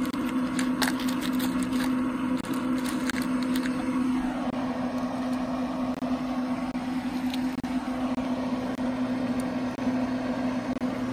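Steady hum of a Traeger pellet grill running, holding one low tone throughout. Light metallic clicks of small fittings being handled come in the first few seconds, and a rustling noise joins in from about four seconds on.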